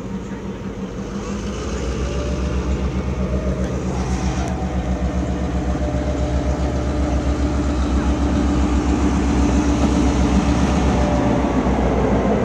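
Diesel locomotive engine running as it approaches, a low throbbing drone that grows steadily louder.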